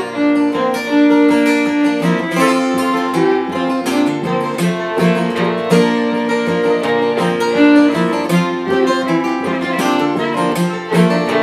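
Two acoustic guitars strumming and picking while a fiddle plays held melody notes over them: an instrumental passage with no singing.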